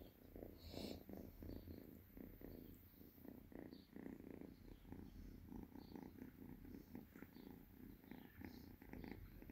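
Kitten purring softly and continuously while being stroked and rubbed on a lap.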